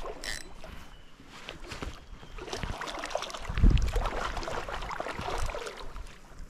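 Water sloshing and splashing close by, with irregular knocks, loudest in a heavy low thump just past halfway.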